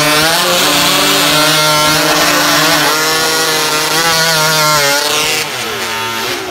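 Chainsaw running at full throttle, cutting through a log. The engine pitch holds high and steady, then sags and falls away near the end as the revs drop.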